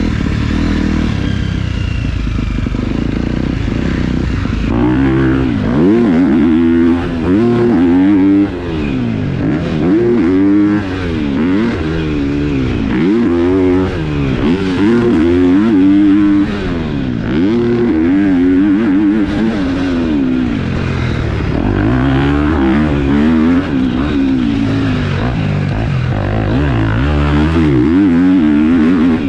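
KTM four-stroke motocross bike with a new aftermarket exhaust, ridden hard on a track. The engine pitch rises and falls over and over as the throttle is opened and shut through the laps, steadier for the first few seconds.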